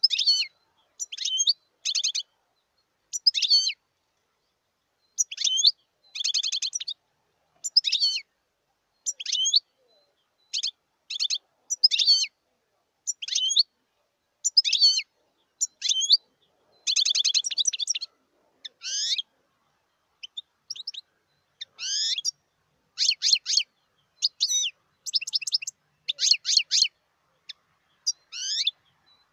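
European goldfinch singing: a steady run of short, high twittering phrases and quick trills, about one a second with brief pauses between them.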